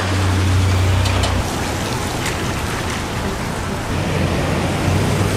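Steady hiss of rain falling on wet pavement, with a few faint drip-like ticks. A low hum runs under it for the first second and a half, then stops abruptly.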